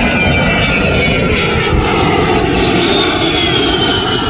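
Loud jet aircraft flying past at an air show, a heavy roar with a high engine whine that drops steadily in pitch as it goes by.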